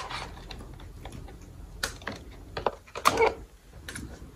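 Hard plastic caddy being handled, with a few scattered light clicks and knocks as it is shifted and its plastic parts bump together.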